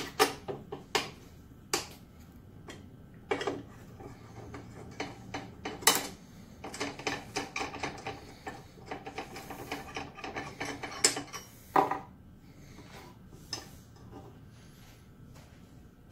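Metal clicks, clanks and rattles from hand-working the stiff miter adjustment at the base of a Delta 10-inch compound miter saw. There are a few sharp knocks near the start, a dense run of rattling clicks through the middle and two more knocks toward the end.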